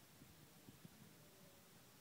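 Near silence: faint room tone with a few soft, short low knocks.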